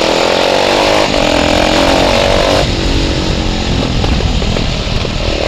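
Bajaj Pulsar 220 motorcycle with an aftermarket exhaust revving under acceleration, with a gear change about a second in; then, off the throttle, the exhaust pops and crackles with backfire 'fire shots' for a couple of seconds before the engine pulls again near the end.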